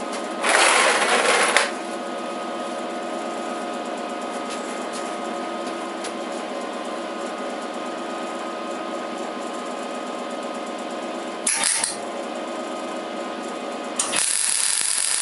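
Three tack welds on a steel frame: short bursts of welding-arc sizzle, the first about half a second in lasting about a second, a brief one near the end, and a longer one starting just before the end. A steady machine hum runs between them.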